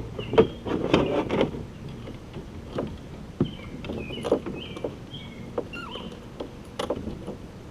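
Knocks and clatter of gear being handled in a fishing kayak, thickest in the first second and a half, then single clicks and bumps here and there.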